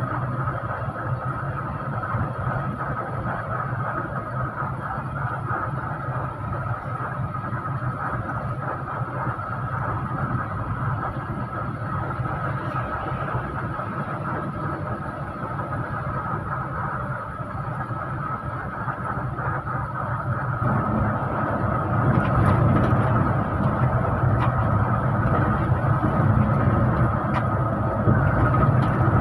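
Bus engine and road noise heard inside a moving bus, a steady drone with a steady high whine over it. It grows louder, with a deeper rumble, about two-thirds of the way through.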